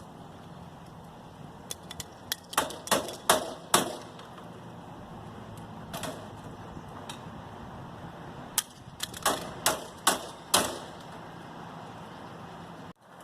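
Sharp knocks and clanks from scrap metal being struck or handled, in two quick bursts of about half a dozen strikes each, with a single knock between them.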